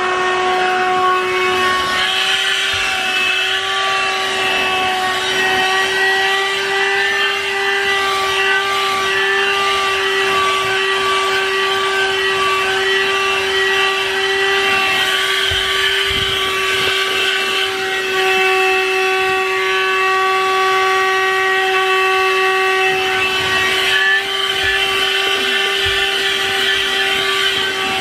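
Corded handheld 12-volt car vacuum cleaner, powered from the car's lighter socket, running steadily with a constant high motor whine while its nozzle vacuums the floor carpet.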